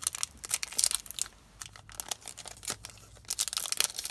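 Foil-wrapped Yu-Gi-Oh! booster pack being crinkled and pulled at in irregular crackling bursts as it is torn open, with a brief lull about a second and a half in; the pack is stubborn and does not want to open.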